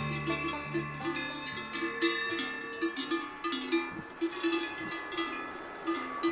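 Cowbells on grazing cows clanking irregularly, several bells of different pitch ringing at once.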